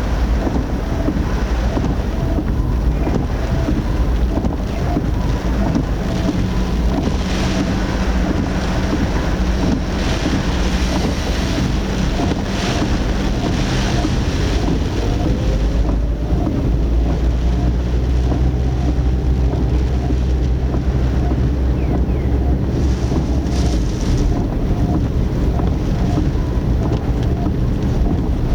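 Typhoon wind and rain buffeting a car, picked up by a dashcam: a loud, steady rush with a deep rumble and hissing gusts that swell and ease, over a faint regular ticking.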